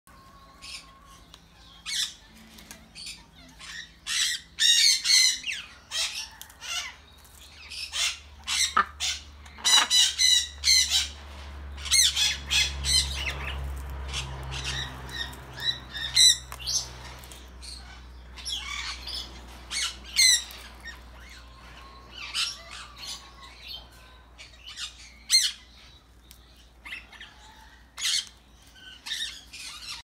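Sulphur-crested cockatoo squawking: many short, harsh calls, bunched into rapid runs in the first half and more spaced out later.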